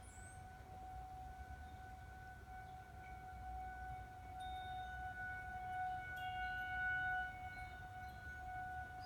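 Tornado warning siren wailing on one steady tone, swelling louder around six to seven seconds in and easing back.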